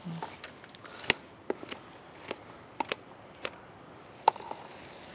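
Garden scissors snipping through the stems of a potted leafy green (ponnaganti), a series of sharp, irregularly spaced snips, the loudest about a second in.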